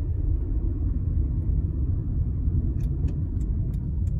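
Steady low road rumble inside a moving car's cabin. About two-thirds of the way in, a regular ticking starts at about three clicks a second, from the turn-signal indicator.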